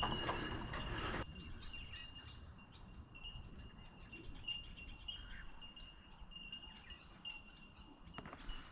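Quiet outdoor ambience with faint bird chirps over a steady thin high tone, after a louder stretch of noise in the first second that stops abruptly.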